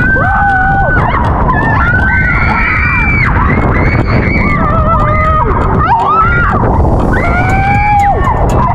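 Several people screaming and shrieking at once in long, held high cries that overlap and slide in pitch, over a loud steady rushing noise.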